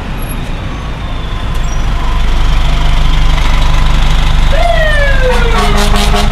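Fire engine pulling away, its diesel engine running loud and growing louder about two seconds in. About four and a half seconds in, its electronic siren (Federal Signal PA300) starts with a quick rise in pitch and then a long falling wail.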